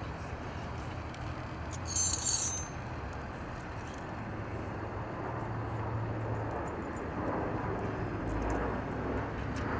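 Metal parts being handled: about two seconds in, a brief high metallic jingle, with a few light clicks later as a steel post and bolt are fitted to a bolt-circle bracket. A steady low hum lies under it.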